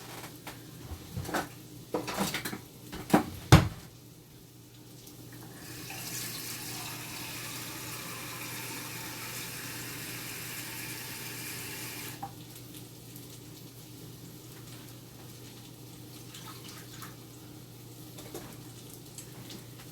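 A few knocks and clatters of kitchenware, the loudest about three and a half seconds in. Then a kitchen tap runs for about six seconds, measuring out water, and shuts off suddenly.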